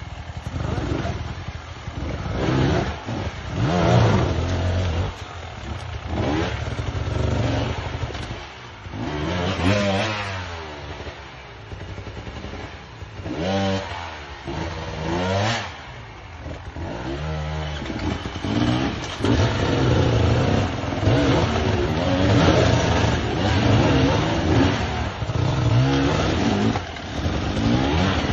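Dirt bike engines revving in repeated bursts, pitch sweeping up and down as the bikes are ridden and pushed up a steep rocky climb, and louder in the last third.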